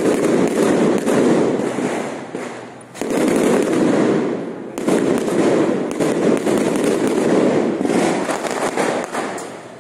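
Strings of firecrackers going off in a dense, rapid crackle that lets up briefly a few times and comes back.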